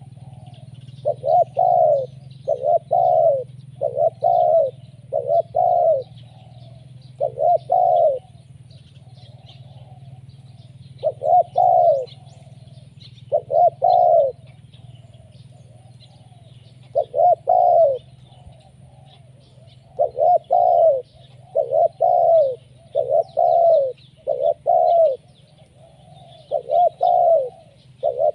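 Spotted dove (tekukur) cooing persistently: repeated arched coo notes in runs of several, with pauses of a few seconds between runs, the kind of calling used as a lure for wild doves. Faint high chirping of small birds and a low steady hum underneath.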